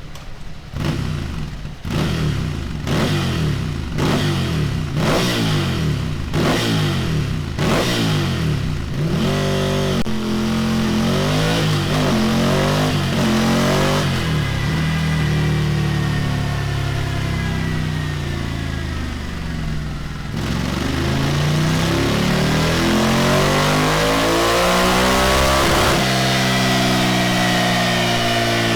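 Ducati Scrambler Desert Sled's air-cooled 803 cc L-twin running on a dyno through a Delkevic 13-inch tri-oval stainless steel muffler: about nine quick throttle blips, roughly one a second, then long runs up through the revs under load, the pitch climbing and falling back a few times.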